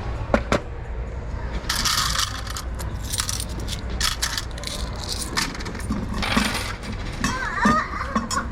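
Loose coins from a candy vending machine's coin box clinking and pouring out in several short bursts, with single clicks between them.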